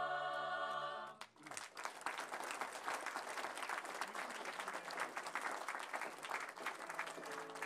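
A mixed choir's held final chord, cut off about a second in, then an audience applauding.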